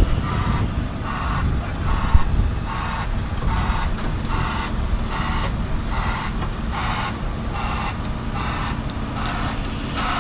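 Backup alarm on a Bauer BG 20H drilling rig beeping steadily about twice a second, over the low rumble of its diesel engine as the rig reverses off the trailer.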